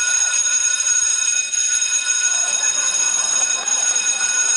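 A steady high-pitched whine of several unchanging tones held together over faint background noise.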